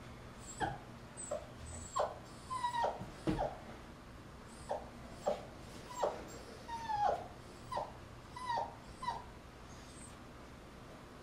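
Goldendoodle puppy whimpering: a string of short, high whines, many sliding down in pitch, sometimes two or three close together. These are stress calls at being left alone in an unfamiliar place.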